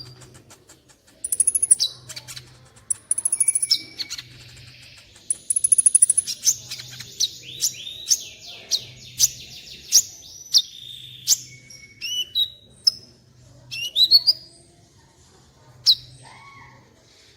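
Sunbird (the 'kolibri' of Indonesian bird-keepers) singing: sharp high chirps, fast buzzy trills and quick falling notes in repeated bursts.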